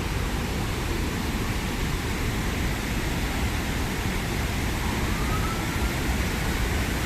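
Steady, unbroken rush of river water flowing over rocks, heavy at the low end. A faint short rising whistle comes about five seconds in.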